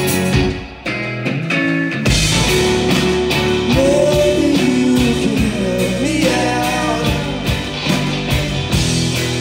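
Live rock band playing: electric guitars, bass guitar and drum kit, with a sung vocal line. The drums and bass drop out briefly near the start, and the full band comes back in about two seconds in.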